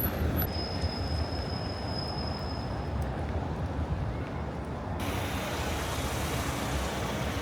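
Steady low rumble of a moving vehicle, with a thin high steady tone for a couple of seconds near the start. The sound changes abruptly about five seconds in.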